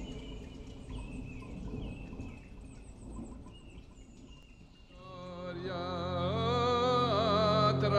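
A low storm rumble with a few short high chirps fades away. About five seconds in, ritual folk chanting begins over a steady low drone and grows louder.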